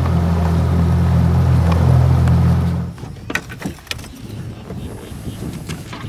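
Boat's outboard motor running steadily underway, stopping abruptly about three seconds in. A few light clicks and knocks follow from handling at the boat's livewell.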